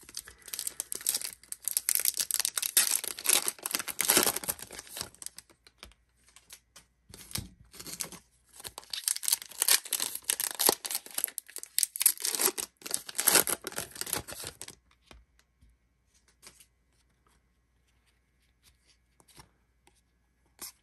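Foil wrapper of a baseball card hobby pack being torn open and crinkled in hand, in repeated loud bursts. For the last several seconds the noise gives way to faint clicks and flicks as the cards are handled.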